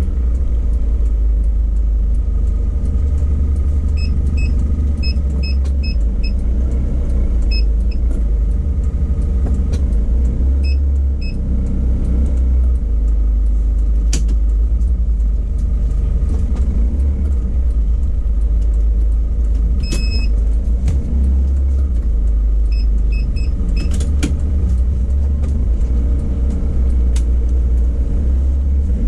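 Isuzu Crosswind on the move: a steady low rumble of engine and road noise, with small clusters of short high-pitched chirps now and then.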